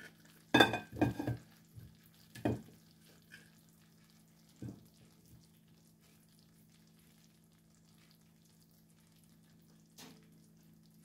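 Boiled potato slices being laid by hand into a glass baking dish: a few knocks and taps against the glass, a quick cluster about a second in, then single ones spaced out, over a steady low hum.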